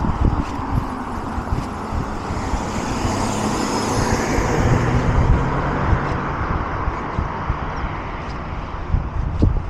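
A car driving past close by, its tyre and engine noise swelling to a peak about four seconds in and then fading, over steady road traffic noise.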